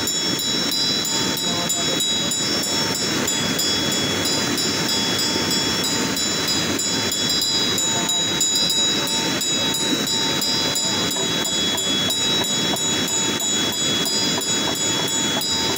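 Buddhist ritual hand bell (drilbu) rung steadily, its clapper striking several times a second and a high ringing tone held throughout, over the steady rush of a mountain river.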